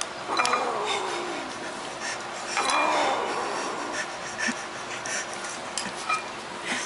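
A kitten growling over its food, a long wavering moan that falls in pitch over the first second or so and another near the middle, with small clicks and scrapes of food against the plate.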